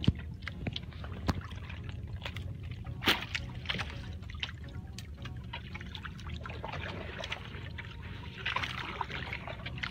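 Sea water trickling and lapping against the hull of a small outrigger fishing boat, with a few sharp knocks on the boat, the loudest about three seconds in.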